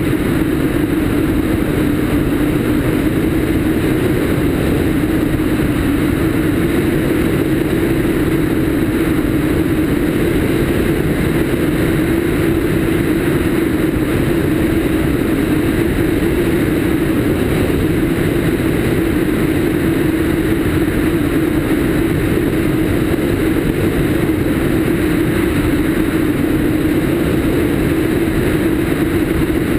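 Cessna 152's four-cylinder Lycoming engine and propeller running steadily in flight, mixed with heavy wind rush on a camera mounted outside on the wing strut.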